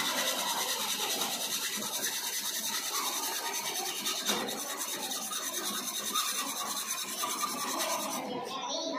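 Hand hacksaw cutting through a square metal pipe held in a bench vise, with a steady rasping of back-and-forth strokes.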